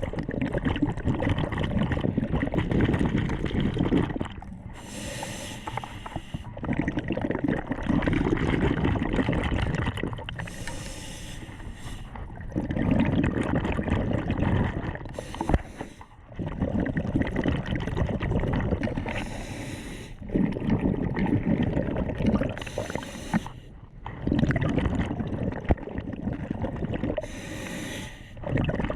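A diver's breathing picked up by an underwater camera, with water rushing and bubbling. Long low rushing stretches are broken every four to five seconds by a short hissing breath.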